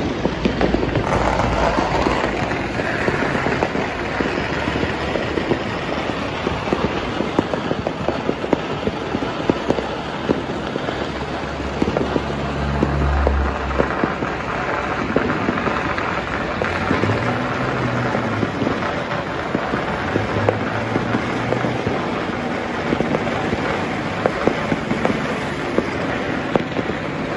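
Dense, continuous crackling of many firecrackers and fireworks going off across the city, a rapid unbroken popping. Passing traffic adds engine hum, most plainly around the middle and a little later.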